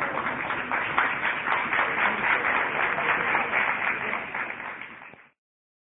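Audience applauding, a dense clatter of many hands clapping that builds in the first second, then cuts off abruptly about five seconds in.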